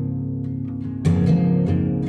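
Slow guitar music without vocals: plucked guitar notes over steady low notes, with a new chord struck about a second in.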